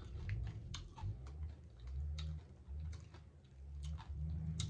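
Close-miked eating of fried fish: chewing with scattered wet mouth clicks and smacks at irregular intervals.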